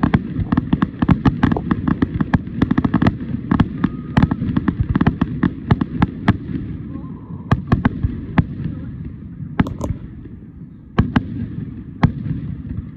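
Aerial fireworks shells bursting in a rapid run of sharp bangs and crackles that thins out after about seven seconds to a few single bangs, over a steady low rumble.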